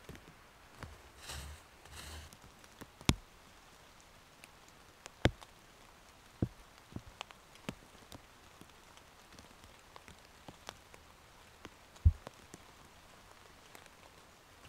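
Scattered raindrops falling irregularly around the camp, a few of them landing loud and close. In the first two seconds, footsteps rustle through wet leaf litter.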